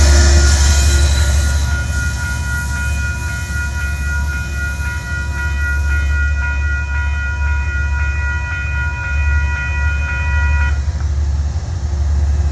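Metro-North cab car's air horn sounding one long chord of several notes for about ten seconds, cutting off sharply near the end, over the low rumble of the arriving train.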